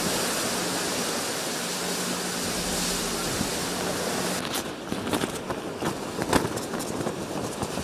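Heavy rain and wind of a hurricane, a steady hiss of rain with a low steady hum beneath it. About four and a half seconds in the sound changes to a rougher rain noise with many sharp taps and crackles close to the microphone.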